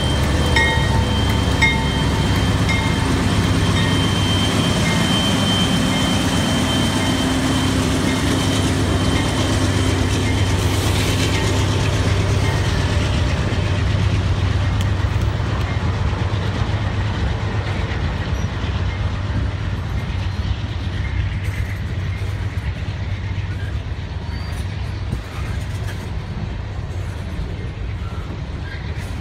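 Norfolk Southern diesel locomotives passing close by, led by a GE Dash 9-40CW, with a steady low engine rumble and wheel noise. Empty coal hopper cars then roll past more quietly, and the sound eases off toward the end. A grade-crossing signal rings in the first few seconds.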